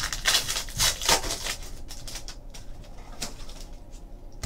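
Trading-card pack being handled: the wrapper torn and crinkled and cards slid and flicked between the fingers, in a handful of short crackly rustles, with a soft knock near the end.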